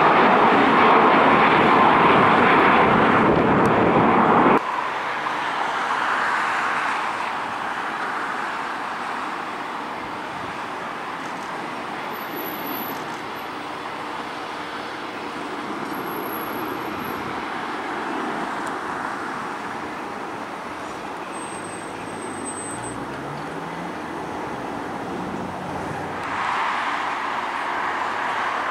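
Airbus A321 jet engines, loud at climb power on departure, cut off suddenly about four and a half seconds in. The rest is the quieter, steady jet noise of a Boeing 747-400F freighter rolling out on the runway after landing, growing louder again near the end.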